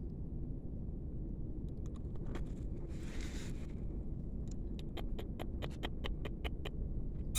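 A puppy feeding at a plastic bowl: a run of quick, wet clicks at about four a second, over a low steady rumble.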